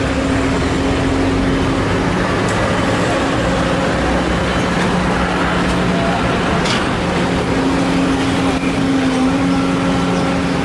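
Diesel engines of a Sumitomo SH210 excavator and an Isuzu dump truck running steadily at work while soil is loaded, with a constant low hum. There is one short knock about seven seconds in.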